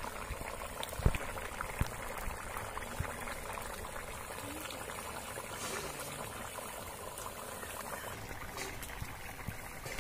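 Fish curry boiling in a wok over a wood fire: a steady, dense bubbling and crackle. Two dull knocks come about a second in and just before two seconds.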